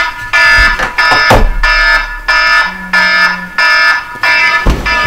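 Loud electronic alarm beeping over and over, about two beeps a second, waking a sleeper. Two sharp knocks cut through it, one about a second in and one near the end.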